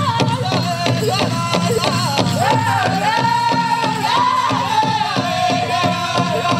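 Powwow drum group singing a chicken dance song in high-pitched voices with wavering pitch, over the steady beat of a big drum.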